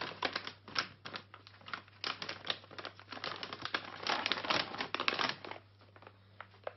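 A crinkly snack bag being handled and opened: a dense, irregular run of crackles and rustles that dies down about five and a half seconds in.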